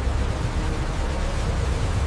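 Storm wind and rough sea aboard a ship: a loud, steady rushing noise with a heavy low rumble.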